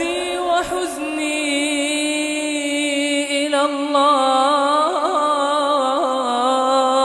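A man's voice chanting Quran recitation in the melodic tajweed style. After a few short sliding notes it holds one long drawn-out note, with small melodic turns about four and five seconds in.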